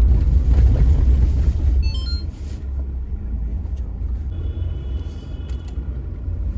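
A car driving, a steady low road and engine rumble that is louder for the first two seconds and eases a little after that.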